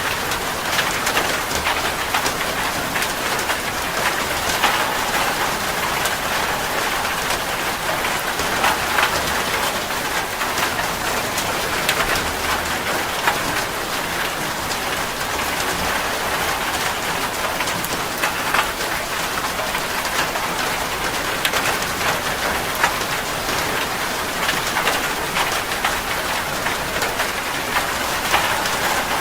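Heavy rain falling steadily on a metal roof, a constant hiss with dense sharp ticks of single drops striking through it.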